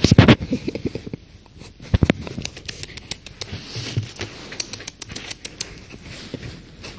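A small shaggy dog nosing and scuffling against the phone close up: a run of clicks, scratches and handling thumps, loudest right at the start and again about two seconds in.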